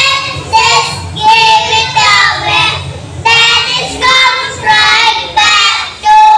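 A group of young boys singing together through stage microphones and a PA.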